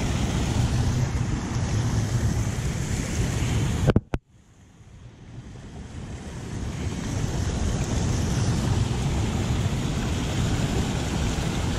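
Wind buffeting a body-worn action camera's microphone, a steady rumbling rush. About four seconds in there is a sharp knock, then the sound drops out almost to silence and slowly comes back over the next few seconds.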